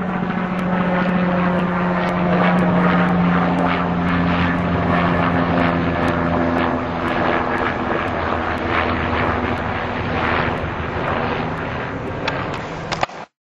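Loud, steady mechanical drone with a low hum under a broad rushing noise, cutting off suddenly near the end.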